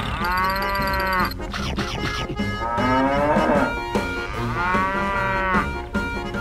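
Cattle mooing, three long moos about two seconds apart, each rising and then falling in pitch, over faint background music.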